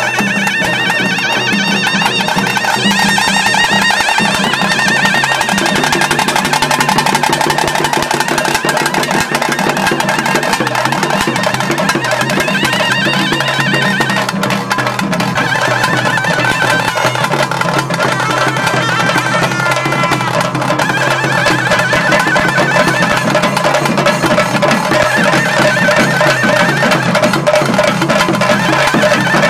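Traditional ritual band music: barrel drums beaten in a steady rhythm under a shrill reed pipe playing a wavering melody.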